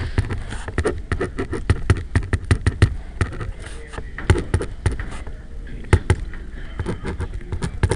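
Pen writing on paper over a hard desk: a quick run of small taps and clicks as each stroke and symbol goes down.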